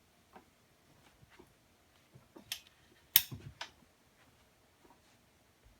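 A few scattered clicks and light knocks of handling. The sharpest and loudest click comes about three seconds in, just after another about two and a half seconds in.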